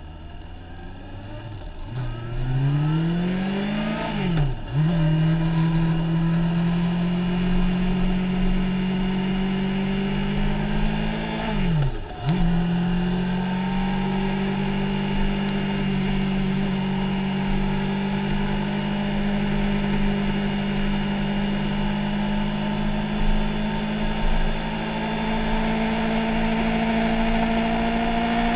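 Motorcycle engine pulling away and accelerating. Its pitch climbs quickly and drops at an upshift about four seconds in. It climbs again and drops at a second upshift about twelve seconds in, then holds a steady, slowly rising note.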